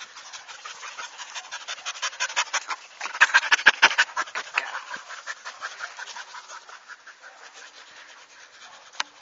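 A dog panting rapidly and steadily, several quick breaths a second, loudest around the middle.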